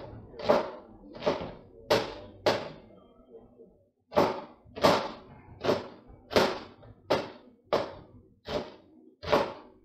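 Chef's knife chopping onions on a cutting board: single sharp knocks a bit more than one a second, with a short pause about four seconds in.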